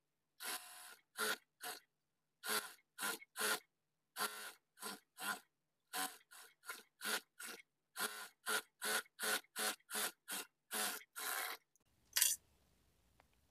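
Cloth being handled and pressed by hand: about two dozen short brushing strokes, a few a second and unevenly spaced, with silence between them.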